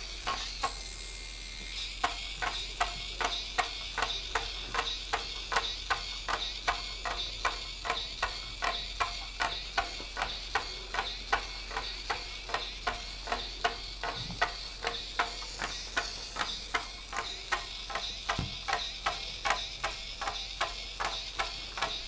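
Hexbug Spider robot walking on a wooden tabletop: its small gear motor whirs while the gearing and plastic legs click evenly, about three clicks a second, pausing briefly near the start.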